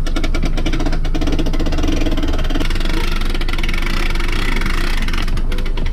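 An engine idling steadily, with a quick, even firing rhythm.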